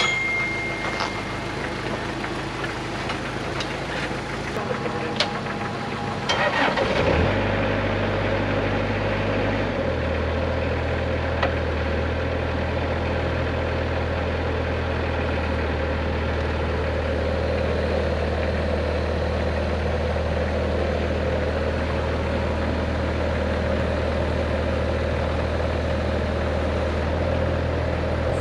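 Jeep engine running at a steady idle, with a short burst of noise about six seconds in, after which the engine note is louder and steadier.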